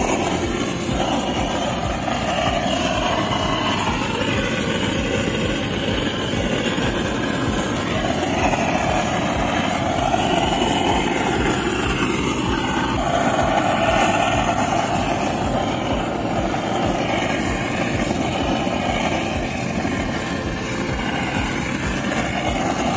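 Butane blowtorch on a gas canister running with a steady rushing hiss, its flame playing over pine panelling to scorch the wood before varnishing.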